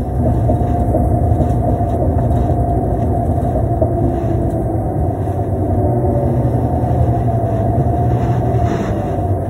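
Cabin noise of a 2005 New Flyer D35LF transit bus running, its Cummins ISL diesel engine and Allison transmission giving a steady low rumble with a thin steady whine over it.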